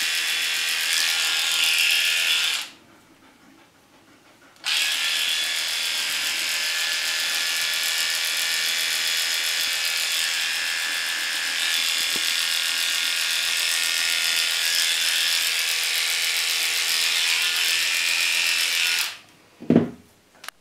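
Cordless electric dog clippers with a number 10 blade running with a steady high buzz as they shave a poodle's face. The buzz cuts out about three seconds in, returns two seconds later, and stops near the end, followed by a short low sound.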